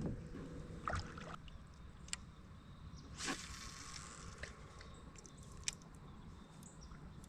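Light water sounds beside a kayak: drips and small splashes, with a few short clicks and knocks and one louder splash about three seconds in.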